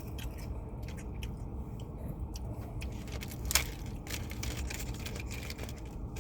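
Steady low rumble with scattered light clicks and rustles, and one sharper click about three and a half seconds in.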